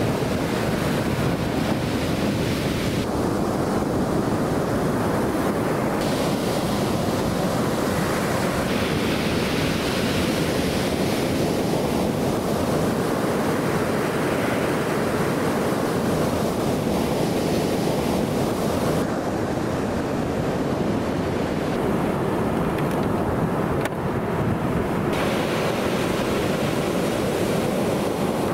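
Ocean surf washing on a beach, a steady rushing sound, with wind blowing across the microphone. The brighter part of the sound changes abruptly several times.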